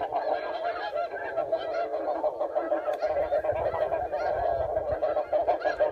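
Many geese honking at once in a dense, steady chorus of overlapping calls.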